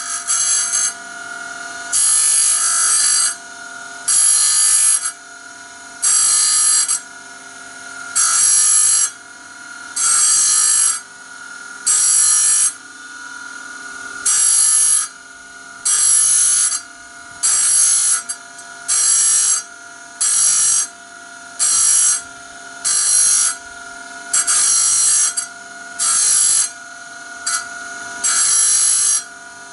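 A power grinding tool runs with a steady whine while its stone is touched to a band saw blade in short grinding strokes, about twenty of them, roughly one every second and a half and coming faster toward the end. Each stroke grinds a new tooth into the semi-blunt steel blade.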